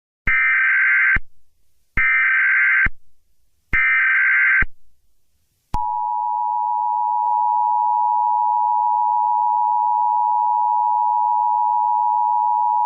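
Emergency Alert System (EAS) broadcast header: three short bursts of the buzzy SAME digital data tone, then the steady two-tone EAS attention signal starting about six seconds in.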